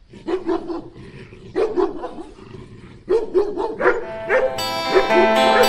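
A dog barking in three short runs of barks, then music with sustained instrumental notes starts about four and a half seconds in.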